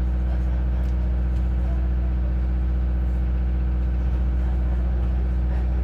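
Ship's engine running with a steady low drone that does not change.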